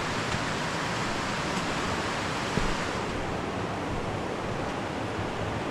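Waterfall rushing steadily: a continuous, even roar of falling water, full after a few days of rain.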